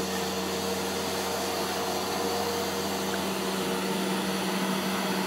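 Upright carpet shampooer running steadily: an even motor hum under a steady hiss.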